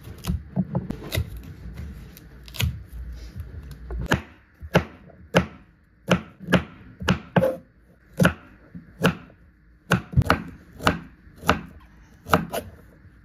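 A kitchen knife cuts through a young green coconut's shell, then chops the shell pieces on a wooden cutting board. After about four seconds the chopping settles into a steady run of sharp knocks, roughly one every half second, that stops just before the end.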